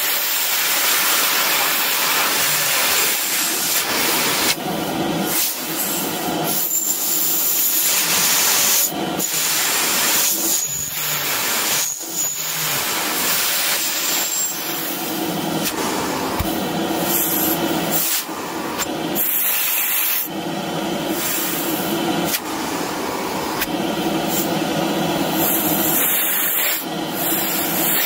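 Electrolux Supercyclone 2100 W vacuum cleaner running at full power with its restored motor: a steady whine and rushing hiss, dipping briefly every few seconds.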